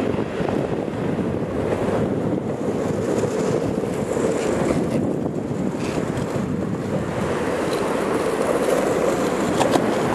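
Skateboard wheels rolling over rough street asphalt, a steady rumble, with wind on the microphone; a couple of sharp clicks near the end.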